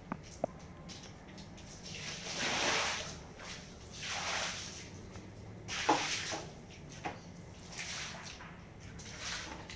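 Water splashing over a wet, soapy tiled floor in several separate swishes, each a second or less, with a few sharp clicks between them.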